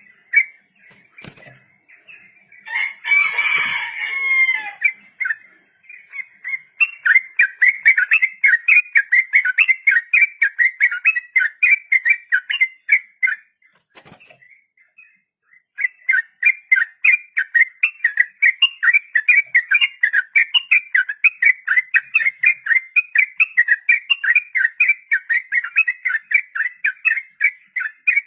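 Yellow-vented bulbul (trucuk) singing its long rapid 'ropel' song: fast runs of short bright notes, about four a second, after a harsher chattering call about three seconds in. There is a gap of about two seconds around the middle.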